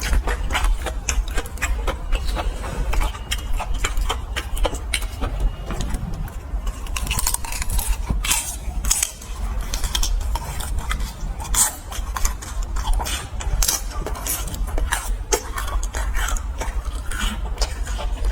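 Close-miked crunching and chewing of fried skewered food, a dense run of crisp crackles and clicks with scattered clinks, over a steady low hum.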